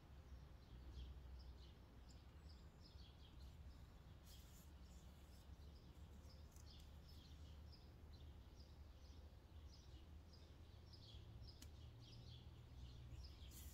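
Near silence: a low room hum with repeated faint, short high chirps, like small birds heard from afar.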